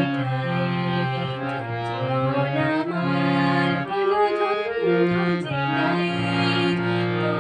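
A woman singing with a harmonium accompanying her, its reed notes held and changing every second or so under the bending vocal line.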